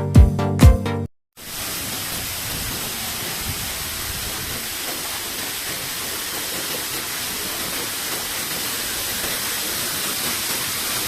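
Background music with a steady beat cuts off about a second in. After a brief gap, a steady, even rushing noise follows.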